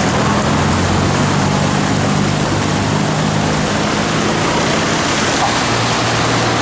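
Vehicles driving through floodwater on a road: a steady rush of churning, splashing water with the low hum of engines underneath.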